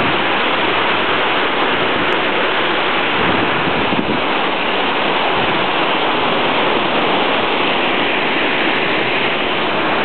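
Steady, loud rush of water from a 70-foot waterfall plunging into its pool and the shallow stream below.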